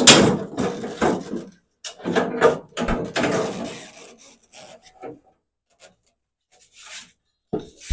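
The Ford 8N tractor's sheet-metal hood scraping and rubbing against the tractor as it is lifted off by hand. There are two long scrapes in the first four seconds, the first the loudest, then a few faint clicks and a short knock near the end.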